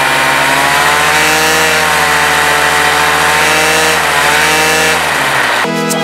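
Blackhawk 125 paramotor's freshly rebuilt two-stroke engine running with an odd chainsaw noise whose cause is not yet known, its revs wavering slightly. It cuts off near the end and music takes over.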